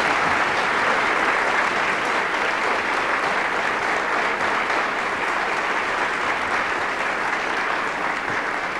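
Audience applauding: a dense, steady clapping that eases off slightly near the end.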